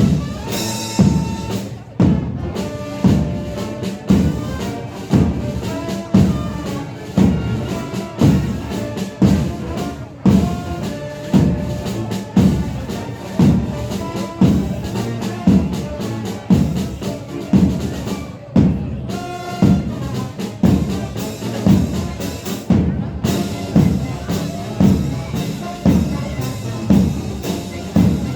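Marching band playing: brass melody over a steady bass-drum and percussion beat.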